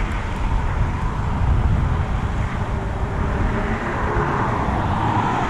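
Road traffic on the bridge: a steady rush of tyre and engine noise from passing vehicles.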